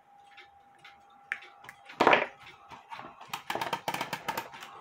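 Hands working on a cuckoo clock at the bench: a short, loud knock or scrape about two seconds in, then a quick run of light clicks and rattles from small clock parts being handled.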